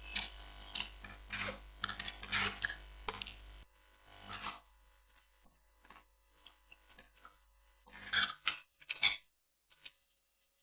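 Close-miked eating sounds of someone chewing noodles: a run of irregular wet mouth noises, then mostly quiet with scattered small clicks and a couple of short bursts near the end.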